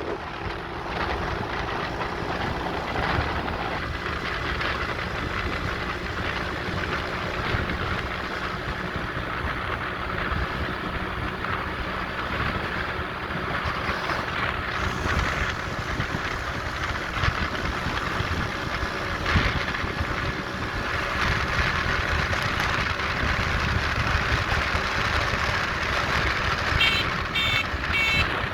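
Steady road and engine noise of a moving vehicle. A rapid series of short high beeps starts near the end.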